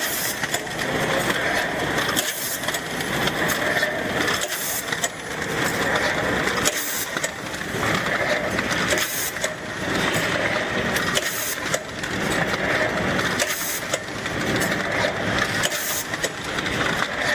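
Honetop rotary premade-pouch packing machine running: a steady mechanical clatter with many sharp clicks, rising and falling in a cycle that repeats about every two and a half seconds as the turntable indexes pouches between stations.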